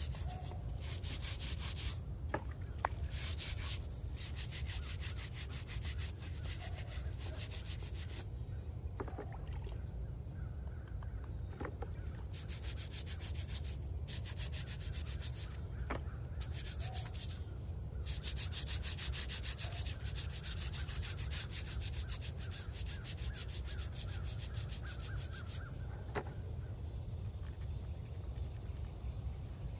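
Small bristle brush scrubbing a stone headstone and its carved lamb, in bouts of quick, light back-and-forth strokes with short pauses between, over a steady low rumble.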